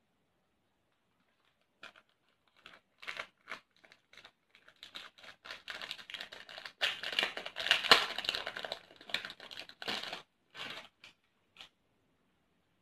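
Clear plastic packet crinkling and crackling in irregular bursts as a wheel of sewing pins is worked out of it, busiest and loudest about two-thirds of the way through.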